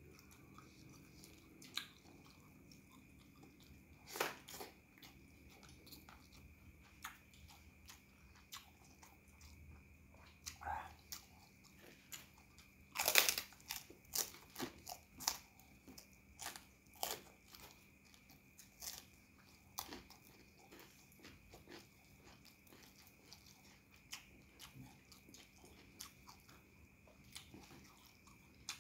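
Eating sounds: chewing, with a run of sharp crunches from biting into a kerupuk cracker, loudest about 13 seconds in. A faint steady hum runs underneath.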